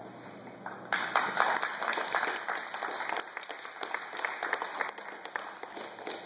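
A small audience clapping by hand. It starts about a second in and tapers off near the end.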